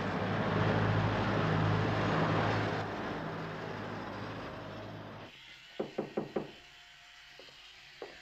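Street traffic, with car and bus engines running under a steady hum. About five seconds in it cuts off to a quiet room, and four quick knocks on a door follow, then a few softer taps.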